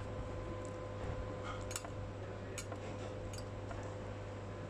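Eating sounds: about three short, sharp clicks over a steady low hum.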